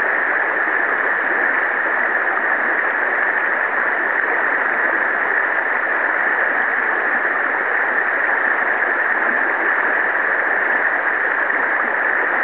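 Shallow river riffle rushing steadily over rocks, a constant even hiss of moving water.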